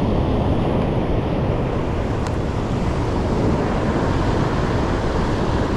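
Wind buffeting the microphone over the steady wash of ocean surf against the rocks.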